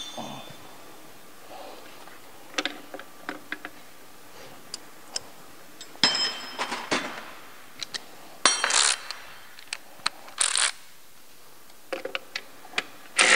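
Scattered metallic clinks, clicks and short clatters of hand tools and bolts being handled against an engine's intake manifold, a few of them ringing briefly. Right at the end a cordless power ratchet starts running.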